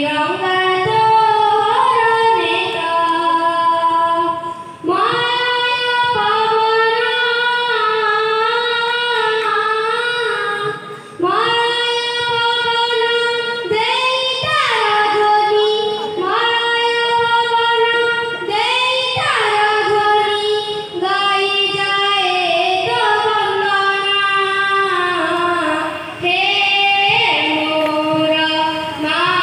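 A child singing a song solo into a handheld microphone, in long sustained phrases with brief pauses for breath about 5, 11 and 26 seconds in.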